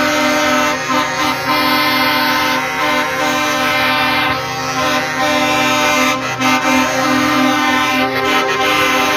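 Several truck air horns sounding together as one dense, held chord of many notes, with some of the notes shifting about six and again about eight seconds in.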